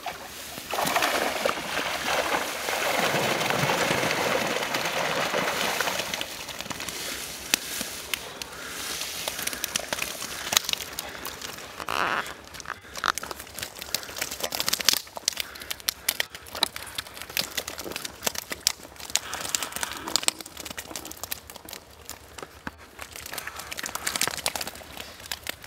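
A fish keepnet holding carp being hauled out of the pond. For the first few seconds there is a loud, even rush, then a long run of rustling and crackling from the wet mesh net being handled on the ground.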